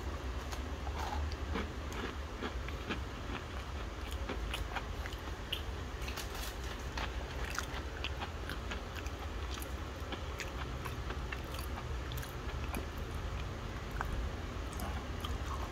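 Crunchy biscuits being bitten and chewed close to the microphone: many small, crisp crackles, including a chocolate-coated wafer biscuit being snapped in two. A steady low hum runs underneath.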